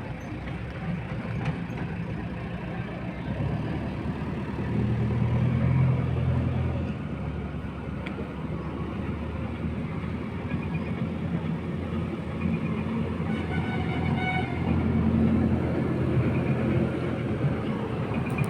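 Diesel engine of a JCB backhoe loader running steadily and revving up twice under digging and loading load.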